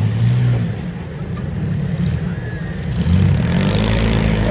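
Demolition derby car engines running and revving unevenly as the cars manoeuvre, the engine note shifting up and down.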